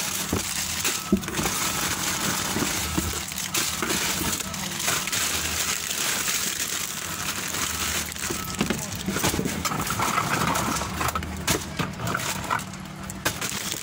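Cardboard boxes and the packages inside them being handled: rustling, crinkling and small knocks and scrapes, with scattered voices in the background.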